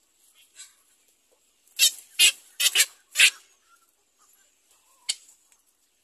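Black-crowned night heron chicks calling to be fed, with short calls. A quick run of four loud calls comes about two seconds in, and one more follows near the end.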